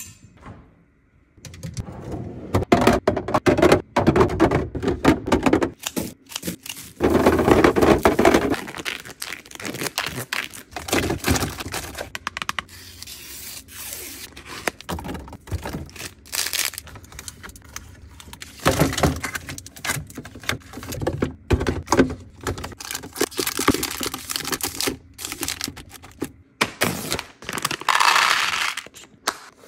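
Snack packaging being handled: plastic wrappers crinkling and tearing, with many clicks, knocks and thunks of items and plastic containers being set down. About 28 seconds in, small chocolate-covered pieces rattle as they are poured from a foil pouch into a clear plastic container.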